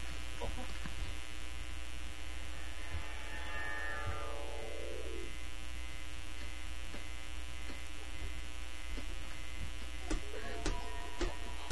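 Steady electrical hum and buzz, with a falling squeak from about three seconds in and a few light taps near the end.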